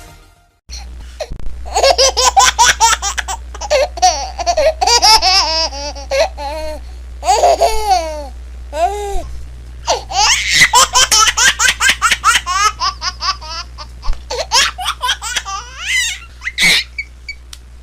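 A baby laughing hard in quick repeated bursts of high-pitched giggles and squeals, with short breaths between runs.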